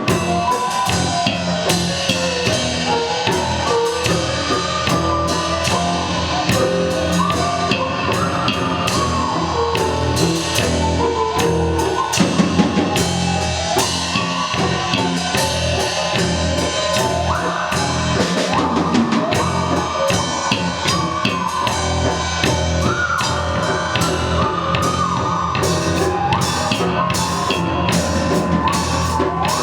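A live rock band plays an instrumental passage with a driving drum kit. Over the drums runs a pitched lead melody that slides up in pitch now and then.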